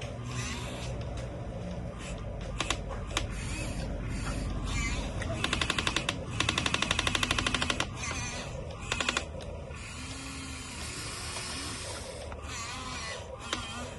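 Excavator running and working, its engine and machinery making a steady noise, with a rapid clattering of clicks, about a dozen a second, for roughly two seconds in the middle.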